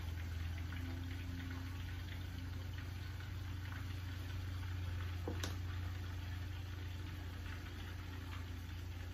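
Meatballs sizzling in hot oil in a frying pan over a steady low hum, with one sharp click about five seconds in.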